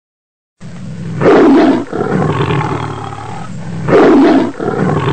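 Tiger roaring, starting just over half a second in: two loud roars, the first about a second in and the second at about four seconds, with lower rumbling between them.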